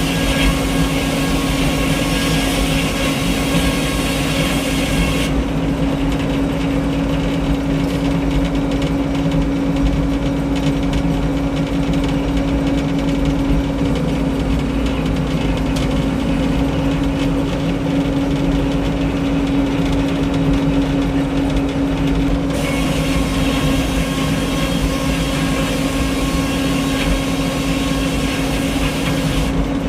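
Frick 01-C circular sawmill running steadily, its power unit and spinning blade making a constant mechanical drone. A bright high hiss over the drone drops away about five seconds in and returns near the end.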